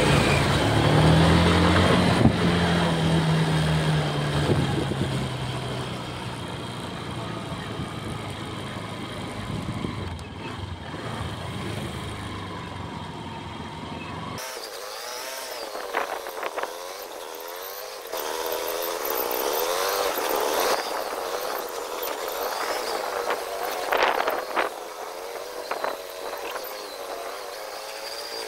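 Motorcycle engine running on the move, with wind rumble on the microphone. About halfway through the low rumble drops away, and the engine's pitch rises and falls with the throttle.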